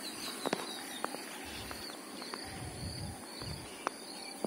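Footsteps through long grass and dried water plants: a few soft thuds and sharp crackles, against a steady high chirping in the background.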